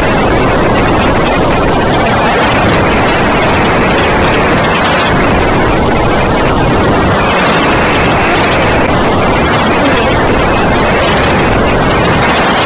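Steady, loud wind rushing over the microphone of a camera riding on an amusement-ride capsule as it swings through the air.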